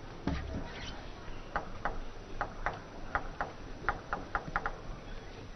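Table tennis ball clicking sharply on the table and bats, a run of quick light clicks that come closer together toward the end.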